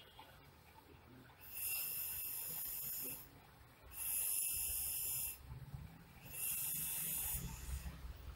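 Rhythmic breathing close to the microphone: three long, hissy breaths of about a second and a half each, a little over a second apart, with a low rumble under the later ones.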